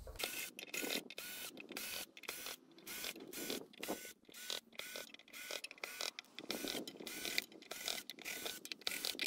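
Cordless drill-driver backing screws out of an aluminium inverter casing in short trigger pulses, its motor whining up and down about twice a second.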